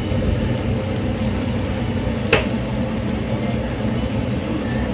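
Steady whirring hum of a kitchen exhaust fan running over the stove, with one sharp click a little over two seconds in.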